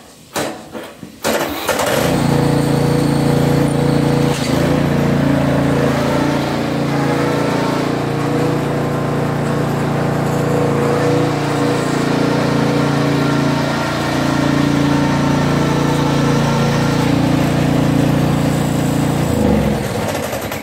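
Small ride-on garden tractor's engine starting about a second and a half in after a few clicks, running steadily, then shutting off and winding down near the end.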